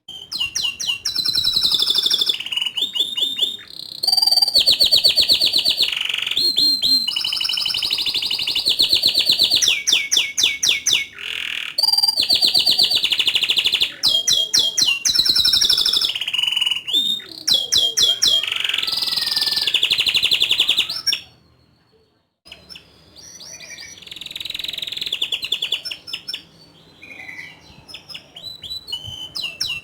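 Domestic canary singing a long, busy song of fast rolling trills and sharp high notes, barely pausing; it breaks off briefly about two-thirds of the way through, then resumes more softly.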